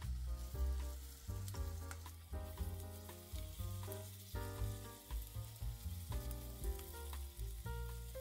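Grated potato and egg batter sizzling and crackling in hot oil in a frying pan as it is spread out. Background music with a moving bass line plays over it.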